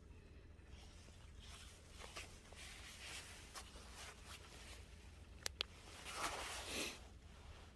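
Faint rustling and scraping of handling noise, with two sharp clicks about five and a half seconds in and a louder swishing rustle near the end.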